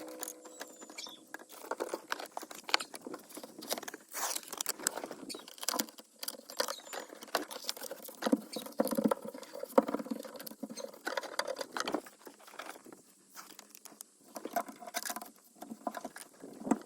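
Irregular crinkling, scraping and tapping of foil-backed sound-deadening sheets being handled and pressed onto a truck cab's sheet-metal back wall.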